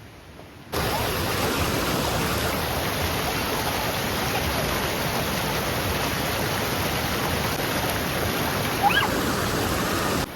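River water rushing steadily. It starts abruptly under a second in and cuts off just before the end, with a short high rising sound about nine seconds in.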